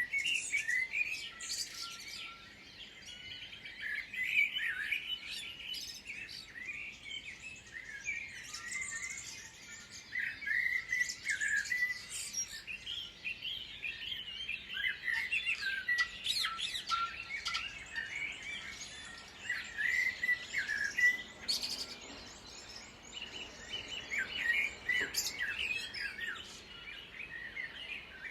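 Songbirds singing: rapid chirps, whistles and trills in bouts of a few seconds, with brief lulls between them.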